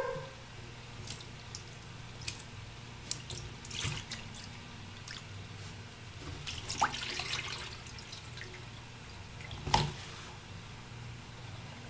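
Raw duck pieces being rubbed and rinsed by hand in a plastic bowl of water in a stainless steel sink: irregular splashing, sloshing and dripping, with the loudest splash about ten seconds in. A steady low hum runs underneath.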